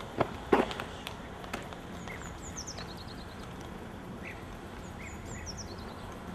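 A few footsteps in the first second and a half, then a bird singing twice, each song a quick falling series of high notes, with a few short chirps, over steady outdoor background noise.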